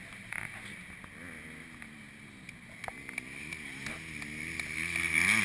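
Motocross dirt bike engines revving around the track at a distance, their pitch rising and falling as the riders work the throttle. They grow louder near the end as the bikes come closer.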